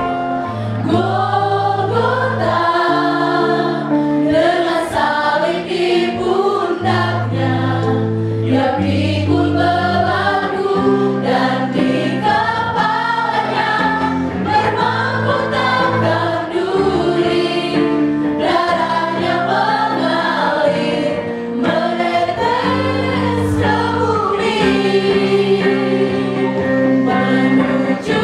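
A group of women singing a slow Christian worship song together into microphones, with held low accompaniment notes underneath the voices.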